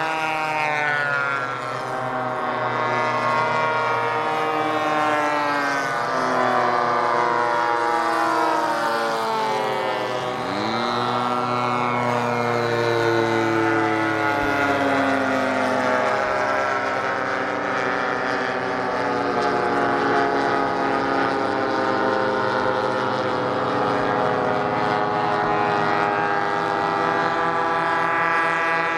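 Engines of several radio-controlled model warbird airplanes running in flight at once, each pitch rising and falling as the planes fly past, with one sharp upward sweep about ten seconds in.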